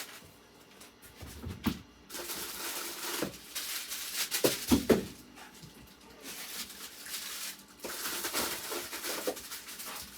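Plastic-wrapped frozen food packets rustling and crinkling as they are handled, in irregular stretches with a few short squeaks.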